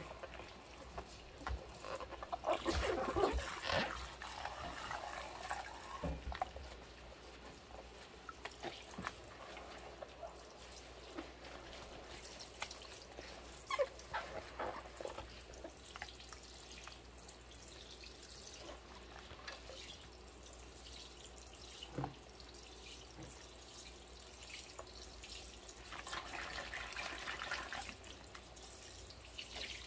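Rubber-gloved hands washing a glass pot lid in a sink of soapy water: water dripping and sloshing with gloved rubbing on the glass and a few sharp clicks. Louder splashing comes about two to four seconds in and again near the end.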